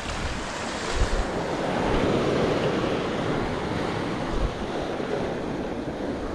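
Small waves washing in over rocks and pebbles at the shoreline, swelling about two seconds in and then slowly ebbing. Wind rumbles on the microphone now and then.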